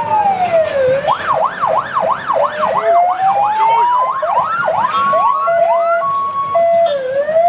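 Electronic siren cycling through its patterns: a slow falling-and-rising wail, then a fast yelp of about four sweeps a second, then a slow rise. After that comes a two-tone hi-lo alternation, and at the end another slow fall and rise.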